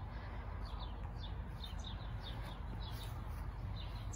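Small songbirds chirping outdoors: short, high, falling chirps several times a second, over a low steady rumble.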